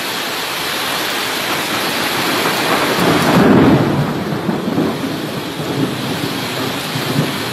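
Muddy floodwater rushing along a flooded street and a torrent pouring down a slope, a loud steady wash of water with heavier low rumbling about three seconds in.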